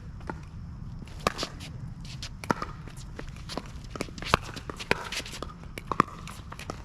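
Pickleball rally: paddles striking the plastic ball in sharp, irregular pops, mixed with players' footsteps and shoes scuffing on the wet court.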